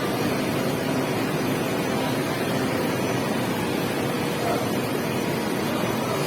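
Sanding machine running steadily: a constant noise with a faint hum.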